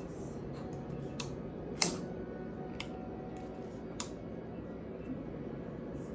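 Sharp metallic clicks from a Jake Hoback Radford folding knife being worked by hand, the blade swinging and snapping against its lock and stop, a handful of separate clicks about a second apart, the loudest about two seconds in. The knife is being tested for drop-shut action and blade play after its pivot was adjusted.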